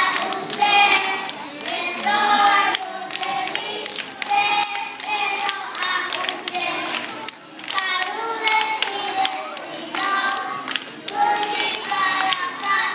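A group of children singing a song together in held, sung phrases, with some hand clapping.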